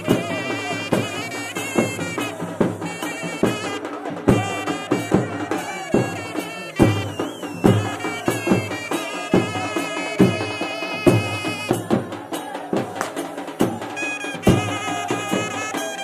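Folk music: a reedy wind instrument plays a wavering melody over regular, evenly spaced drum beats.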